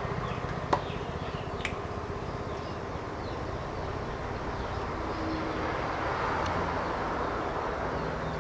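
Steady low mechanical hum, with a couple of brief faint clicks in the first two seconds.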